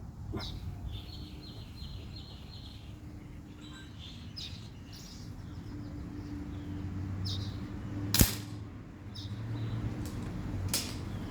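A single shot from a CP1 PCP air pistol, one sharp crack about eight seconds in, with birds chirping in the background.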